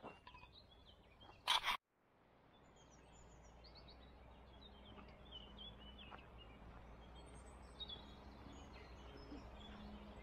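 Wild birds chirping and singing faintly over quiet outdoor ambience with a steady low hum. Near the start there is a brief loud burst of noise, then the sound cuts out and fades back in.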